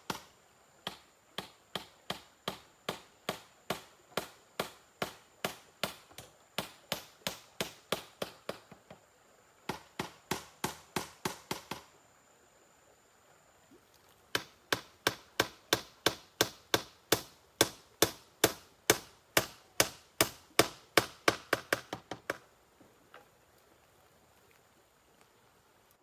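Evenly paced blows on bamboo, about two a second, as the crossed lattice of a bamboo gate is fastened to its frame. They come in three runs, pausing briefly twice, and stop with a last faint knock.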